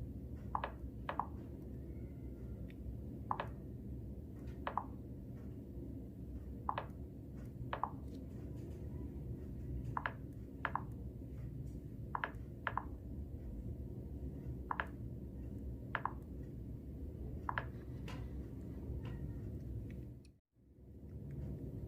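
OnePlus Nord smartphone clicking repeatedly, typical of it being locked and unlocked by fingerprint over and over. The clicks come mostly in pairs about half a second apart, every two or three seconds, over a steady low hum. The hum cuts out for a moment near the end.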